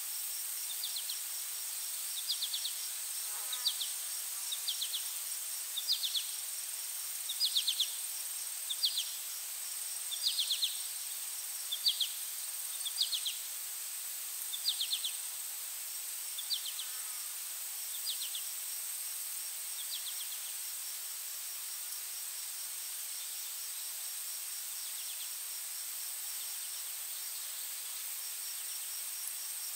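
Field insects: a steady high-pitched buzz with a cricket's pulsing trill, and a short chirp repeating about once every second and a half that fades away after about twenty seconds.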